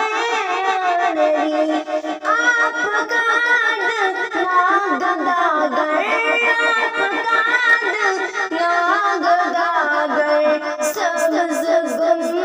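A woman's voice singing an Urdu naat (devotional poem in praise of the Prophet) solo, in long, ornamented melodic lines. A brief run of faint clicks comes near the end.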